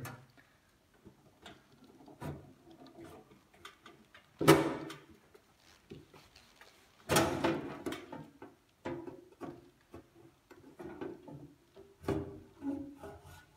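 Knocks, clunks and scrapes of a thermal analyzer's white housing cover being worked loose and lifted off, with two sharp knocks about four and seven seconds in and lighter taps in between and afterwards.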